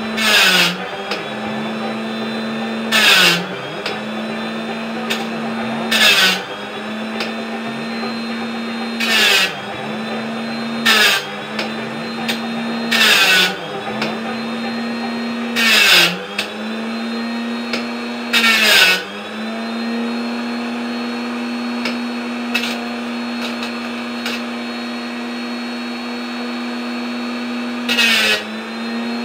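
Handheld rotary tool running steadily with a diamond disc, giving a shrill grinding burst every two to three seconds as the disc bites into the gaps between a bandsaw blade's teeth to sharpen them one at a time. The motor's pitch dips briefly under load at each grind. Near the end there is a longer stretch of plain running before one more grind.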